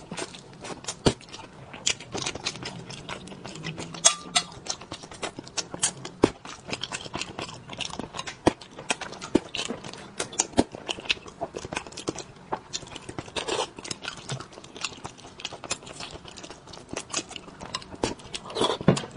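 Close-miked eating sounds: a person chewing and lip-smacking on soft spicy braised fish. There is a steady run of short wet clicks and smacks, with a few louder ones.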